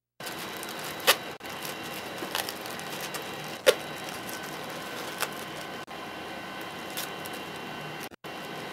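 Steady hum of the shuttle cabin's air system, with about five sharp crackles and rips from a plastic trash bag being squeezed and wrapped with gray duct tape. The loudest crackle comes about three and a half seconds in.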